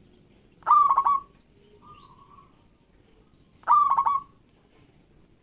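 Zebra dove (perkutut) singing its loud, stuttering coo: two short phrases of rapid clipped notes about three seconds apart, with a fainter drawn-out note between them.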